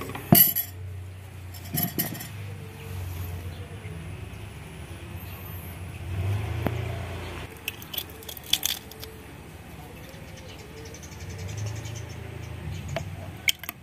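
A chicken egg being cracked and its shell picked apart by hand. There are a few sharp clicks and clinks of shell against shell and glass, the loudest near the start. A low steady hum runs underneath.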